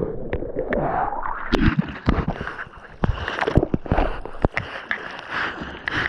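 Hand-paddling strokes and water splashing and washing over a surfboard's deck, heard close up at the board's nose, as the surfer paddles to catch a wave; irregular sharp splashes throughout.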